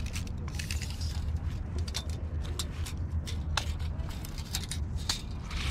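A steel tape measure being pulled out and laid along a bass on brick paving: scattered sharp clicks and scrapes over a steady low rumble.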